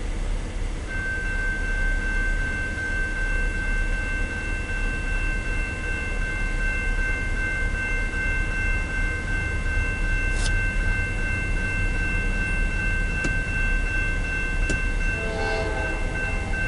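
Railroad crossing warning bell sounding as the signals activate: a steady high ringing that starts about a second in and continues, over a steady low rumble. A short horn blast comes near the end.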